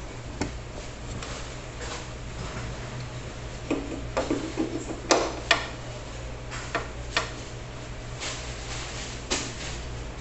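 Scattered sharp clicks and knocks of metal parts on a Gural meat slicer being handled and fitted, bunched together about four to six seconds in, with a couple of single clicks later, over a steady low hum.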